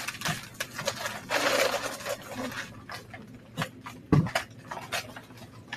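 Children scuffling and rustling as they take paper egg cutouts off a painted board: a run of light clicks and scrapes, a stretch of rustling about a second and a half in, and a single thump about four seconds in.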